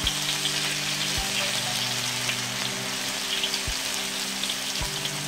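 Hot oil sizzling and crackling as cubes of tempeh deep-fry in a wok, with a few soft low knocks.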